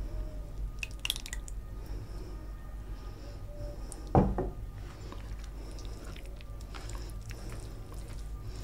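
Wet squishing and small clicks of a hand mixing rice with curry on a plate, with a single thump about four seconds in, the loudest sound, from a glass bowl set down on the table.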